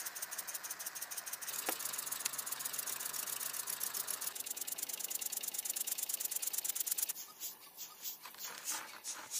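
Small vertical model steam engine running fast, its exhaust giving a quick, even rhythm of little puffs and clicks. Near the end it turns quieter, with slower, uneven puffs.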